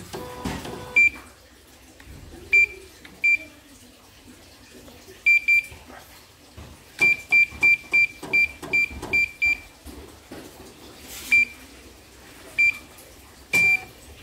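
Key beeps from a CNY portable computerised embroidery machine's control panel, one short high beep per button press. A few single beeps come first, then a quick run of about ten in a row in the middle, then a few more singles.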